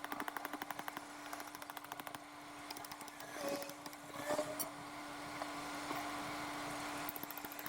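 Rapid, even rattling of a power tool in short runs during the first two seconds and again near the end, over a steady hum.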